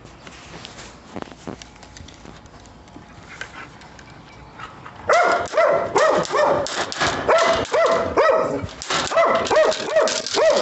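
A dog barking repeatedly and rapidly, starting about halfway through and going on without a break. Before the barking there are only faint clicks and rustling.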